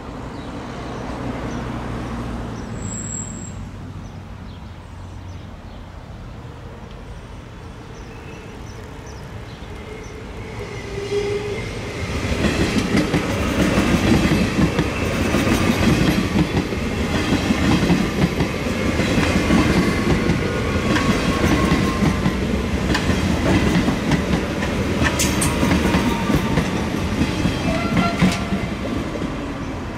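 SBB FV-Dosto (RABe 502) double-deck electric multiple unit passing close by. The sound builds for about ten seconds, then gives way to a loud, steady run of wheels clattering over rail joints and points. It eases off near the end as the last car goes by.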